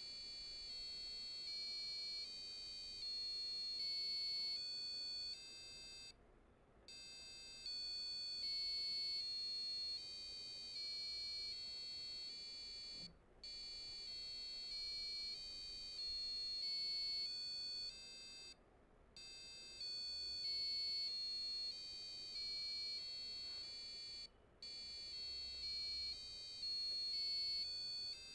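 Passive piezo buzzer driven by an Arduino Uno, playing the Sa Re Ga Ma scale as a series of shrill electronic tones, one held note after another, in runs of about eight notes up the scale and then back down. A brief silence falls between the runs.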